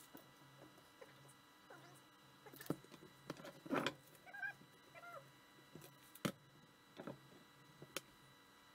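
Light, scattered clicks and taps of small steel parts and hand tools being handled on a wooden workbench, with a denser clatter about four seconds in and a couple of brief squeaks just after.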